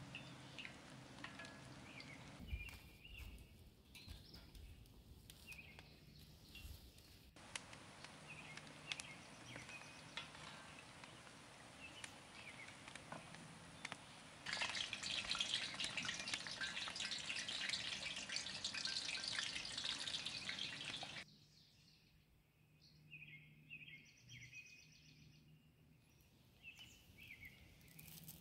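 Rice kibbeh deep-frying in hot oil in a cast-iron pan: a steady sizzle with small spatters, at its loudest for several seconds past the middle and then dropping away suddenly. Birds chirp in the background.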